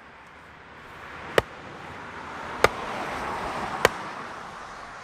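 Sledgehammer blows on a wooden 4x4 post: three sharp, even strikes about 1.2 seconds apart. A soft rush of background noise swells and fades between the blows.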